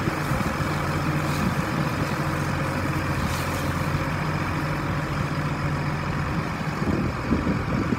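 Case IH Magnum 285 tractor's diesel engine idling steadily.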